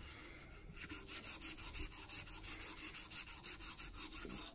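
Steel back of a 3/8-inch Marples Gold Chip chisel rubbed on a 400-grit diamond plate in quick, even back-and-forth strokes, a steady rasping scrape. The back is being lapped flat, the plate grinding off the high spots around a hollow.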